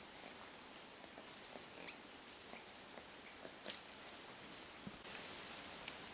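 Faint forest background: a steady hiss with scattered small clicks and ticks, one a little sharper near the middle.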